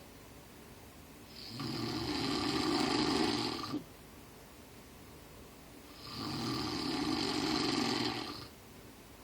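Loud snoring during sleep: two long, rough snores of about two and a half seconds each, roughly four and a half seconds apart, with quieter breathing gaps in between.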